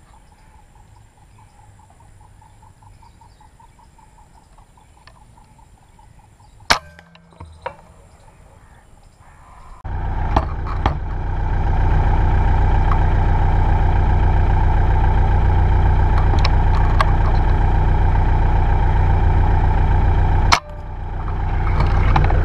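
A single sharp shot from a scoped rifle about a third of the way in, against a quiet background, with a smaller click just after. From about halfway a loud, steady, low engine drone, a vehicle running, takes over, with another sharp crack near the end.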